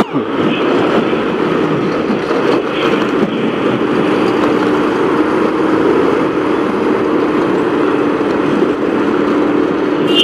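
Motorcycle riding in town traffic: steady engine and road noise heard from the bike, with a steady hum coming in more strongly about halfway through.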